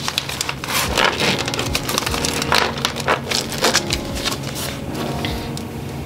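Paper envelopes and cash being handled and shuffled: an irregular run of rustling and crinkling, busiest about a second in and again past the middle.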